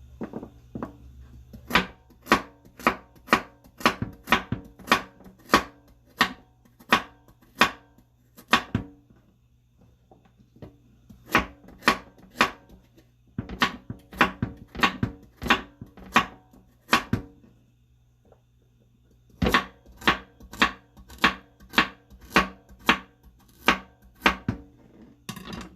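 Knife chopping vegetables on a cutting board: sharp, even strikes about two a second, in three runs with short pauses between them.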